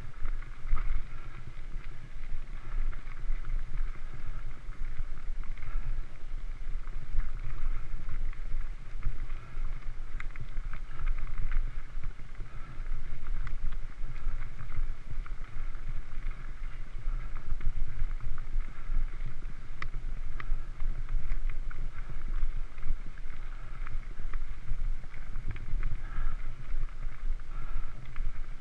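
Mountain bike rolling over loose gravel, heard from a GoPro mounted on the bike: a steady rumble and crunch of tyres on gravel, with many small clicks and rattles from the bike and some wind on the microphone.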